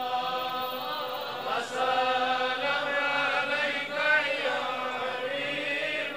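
Voices softly chanting a slow devotional darood refrain in long held notes, without lyrics clear enough to make out.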